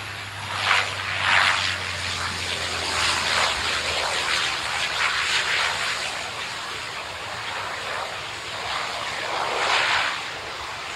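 Cessna 208 Caravan's turboprop engine and propeller running as the plane rolls along the runway: a continuous rushing drone that swells and eases several times, with a low hum underneath that fades out about a third of the way in.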